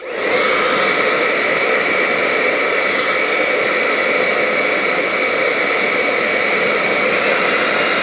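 BaByliss 3Q hair dryer, with its brushless digital motor, running: steady rushing air with a high, even whine, switched on at the start and dying away near the end. It is blowing hot again now that the dust clogging it has been cleaned out.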